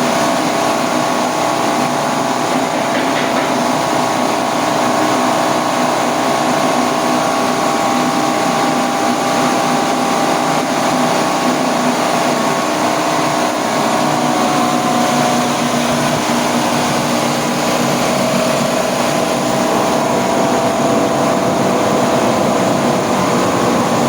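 Coconut-milk press machine with its coupled grater, driven by a 2 hp, 1800 W electric motor, running steadily at an even pitch.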